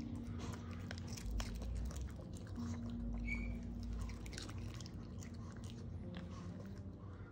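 A Maltese dog chewing and crunching food taken from a hand, with quick, crisp crunching clicks throughout.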